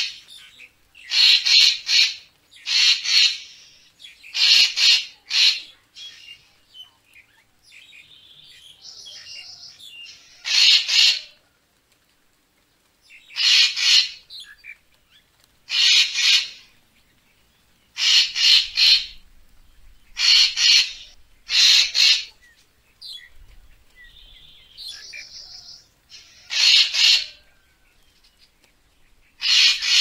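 Racket-tailed treepie calling: a series of short, harsh notes repeated at uneven intervals of one to three seconds, with a softer, fainter call twice in the pauses.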